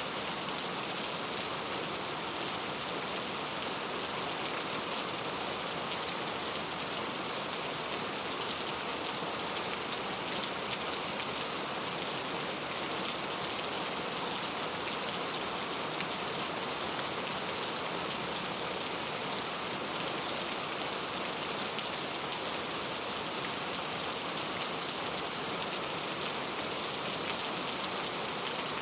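Heavy rain falling steadily, a continuous hiss of drops with faint individual patters.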